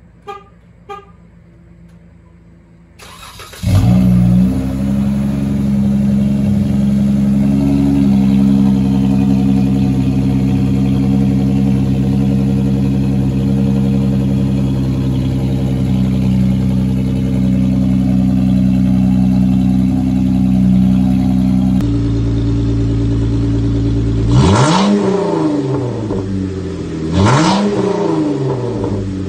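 Two clicks, then a 2012 Jeep Wrangler JKU's 3.6-litre V6 cranks briefly and starts, flaring up and settling into a steady idle through a freshly fitted custom aluminum high-rise exhaust with a glass-pack muffler. Near the end the engine is revved twice, each rev rising and falling in pitch.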